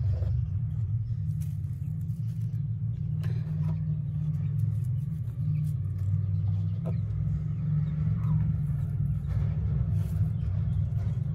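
A steady low rumble throughout, with a few faint clicks and rustles of straw and eggs being handled in the nest.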